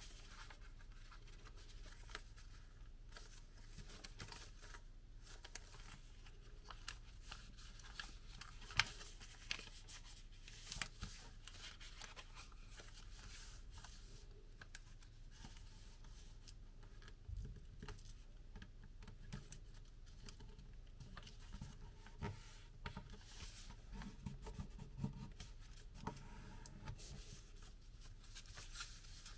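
Sheet of origami paper being folded and creased by hand: faint rustling with scattered soft taps and crinkles, the sharpest click about nine seconds in.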